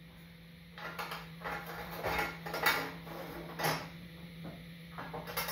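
Irregular metallic clinks and knocks as the BMW R1200RT's exhaust header pipes are handled and worked into position against the engine, over a steady low hum.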